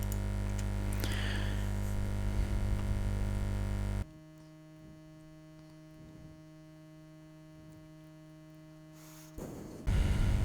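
Steady electrical mains hum on the recording, a buzzing drone with no other sound. About four seconds in it drops abruptly to a much fainter hum, and it returns at full strength near the end.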